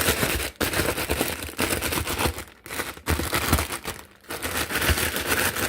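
Plastic packaging crinkling and rustling in irregular bursts as it is handled and worked open.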